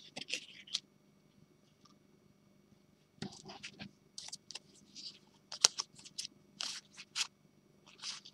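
Oracle cards being handled: card stock sliding and scraping against card as a deck is fanned through by hand, in a string of short strokes. Most come from about three seconds in, the loudest a sharp snap around five and a half seconds in.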